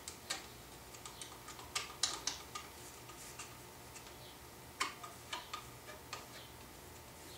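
Scattered light clicks and taps, irregularly spaced, from wooden boards and a glue spreader being handled while glue is spread on the board faces for a glue-up.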